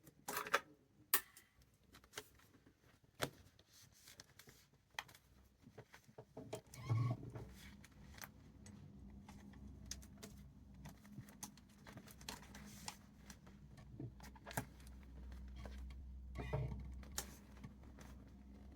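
Clicks and knocks of handling, then from about seven seconds in the steady low hum of a sewing machine motor running, with faint ticks over it.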